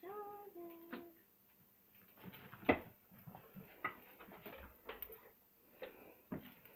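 A clear plastic exercise ball with a chinchilla inside rolls and bumps over a wooden floor, giving scattered clicks and knocks; the loudest knock comes a little before halfway. At the very start there is a brief pitched whine.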